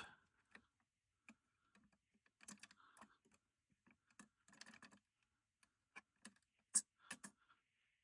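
Faint, scattered small clicks and light metal taps of an LGA1366 CPU socket's hinged load plate and retention lever being handled while it is closed over a seated Xeon processor, the loudest click about seven seconds in.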